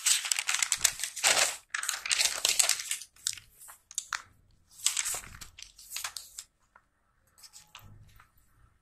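Paper notebook pages being turned over by hand, rustling in several loud sweeps during the first six seconds or so, then only faint paper handling.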